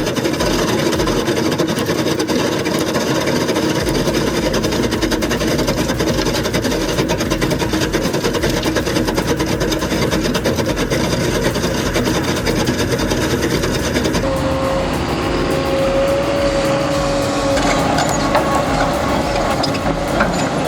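Heavy diesel machinery running under load with a steady grinding noise. About fourteen seconds in the sound changes, and a steady whine comes in for a few seconds.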